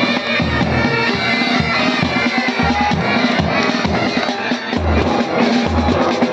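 Military pipe band playing: bagpipes carry a melody over their steady drone, with bass drum beats underneath.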